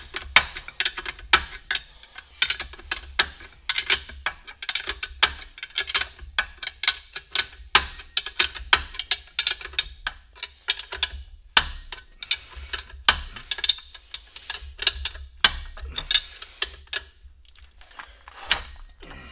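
A wrench working the nuts on a truck's front air brake chamber: a run of sharp metallic clicks and clinks, several a second, with short pauses as the wrench is reset.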